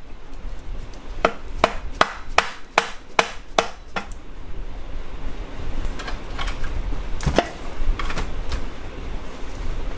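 An orange mallet tapping on an NP242 transfer case housing: a regular run of about eight sharp knocks, a little over two a second, starting about a second in. After that come a few scattered, lighter knocks and clunks, with one louder knock about seven seconds in.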